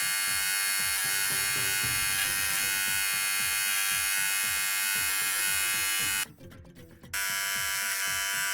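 Electric beard trimmer buzzing steadily while being test-run with a freshly sharpened blade. It is switched off about six seconds in and back on about a second later.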